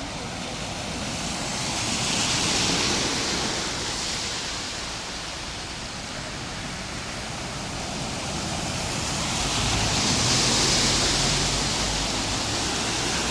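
Steady rushing, splashing hiss of floodwater. It swells twice, about two seconds in and again near the end, where a low rumble joins it.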